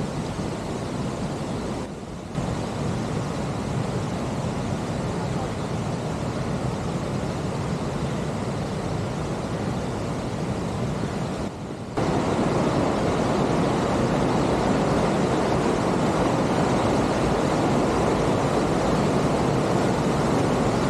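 Steady rushing of a fast mountain creek, stepping up louder a little past halfway.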